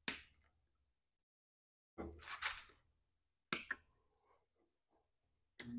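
A few short handling clicks and a brief rustle, then near the end a magnetic drill press's electric motor starts and runs with a steady hum.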